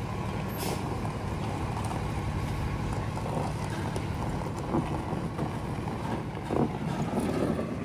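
Medium-duty tow truck's diesel engine running steadily at low speed while it pulls a forklift on its wheel-lift.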